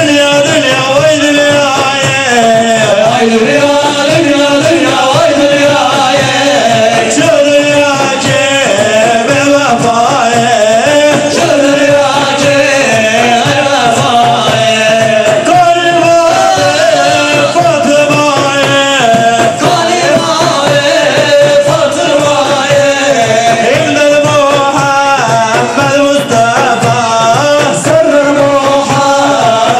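Ilahi, Turkish Islamic hymn music: several large frame drums (daf) beat a steady rhythm under a continuous wavering melody.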